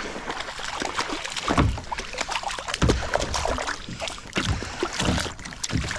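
Knocks, clicks and water noise around a kayak as a hooked bass is played up to the boat, with several heavier thumps against the hull.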